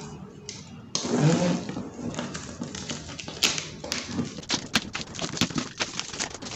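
Black plastic parcel wrapping being slit with a utility knife and pulled open: a burst of tearing about a second in, then a run of quick crinkling crackles.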